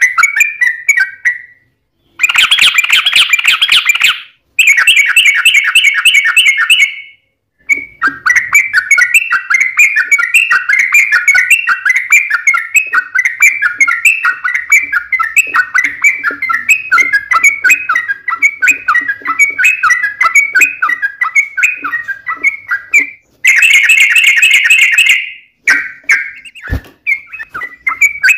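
Yellow-vented bulbuls (trucukan) singing in long, rapid runs of chattering notes, the fighting-style song used as a lure. Twice, about two seconds in and again near the end, the song turns into a harsher, denser outburst of calls, and a sharp click comes shortly before the end.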